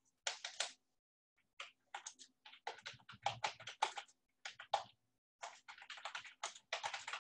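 Computer keyboard typing: irregular runs of quick key clicks, with short pauses between words.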